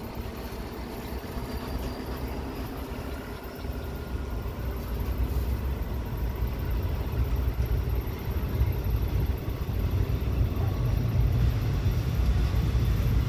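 Low diesel-train engine rumble heard from aboard a slowly rolling train, growing steadily louder as the train gathers pace.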